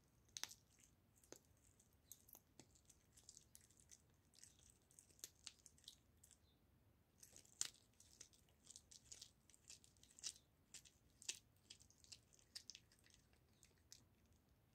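Tabby kitten gnawing and chewing a raw goose neck: faint, irregular small clicks and crunches, the loudest about halfway through.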